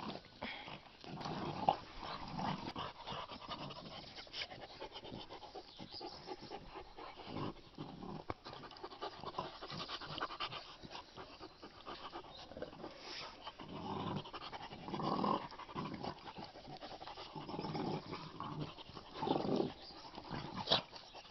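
Puppies panting at close range while playfully mouthing a person's hand and arm, with a few louder spells, each about a second long.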